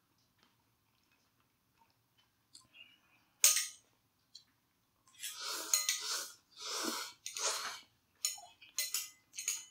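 Metal chopsticks click sharply once against a plastic takeout container, then spicy noodles are slurped in three quick pulls about halfway through, followed by a few short clicks near the end.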